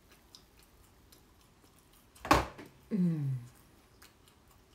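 A single sharp, loud snap about two seconds in, followed at once by a short, falling vocal grunt from a man.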